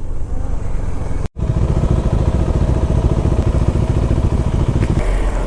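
Motorcycle engine idling with a steady, even pulse. The sound drops out for an instant just over a second in.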